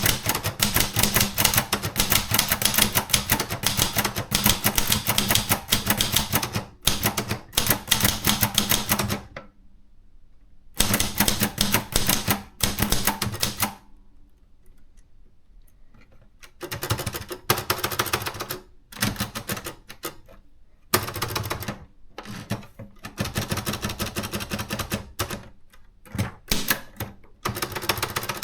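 Contessa 2 de luxe portable typewriter being typed on: rapid keystrikes clacking in long runs. They stop briefly about nine seconds in, and again for a few seconds about halfway through. After that they come in shorter, start-stop bursts.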